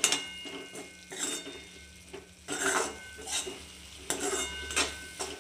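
A spatula scraping and knocking against a metal kadai as chopped snake gourd and coarsely ground coconut are stirred and sautéed, with several irregular strokes about a second apart.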